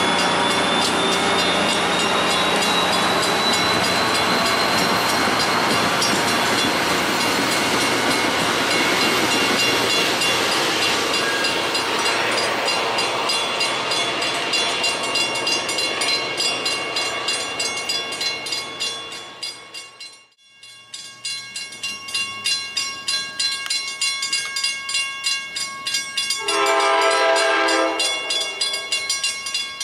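Passenger train rolling out on the rails, its wheel noise fading as it pulls away. After a short break, a railroad crossing bell clangs at a steady beat, and an approaching locomotive blows its multi-note horn for about a second and a half near the end.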